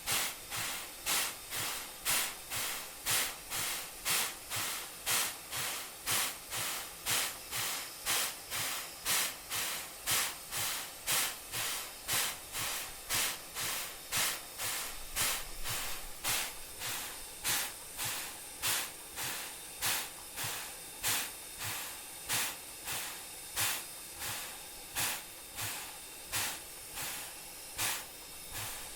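Steam locomotive chuffing at a steady pace of about two exhaust beats a second over a continuous hiss of steam; the beats grow weaker over the last several seconds.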